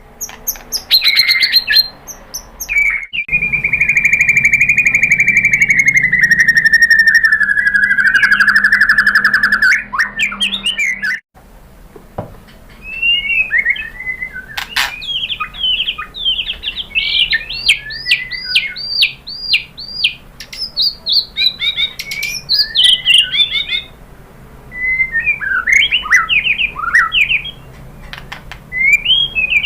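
White-rumped shama (murai batu) singing: a long trill held for about seven seconds and falling slowly in pitch, then, after a brief break near the middle, a run of varied phrases with fast repeated notes.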